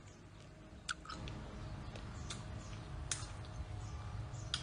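Eating small fruit by hand: about five sharp clicks and mouth smacks, spaced unevenly, as the fruit is peeled and chewed, over a low steady rumble.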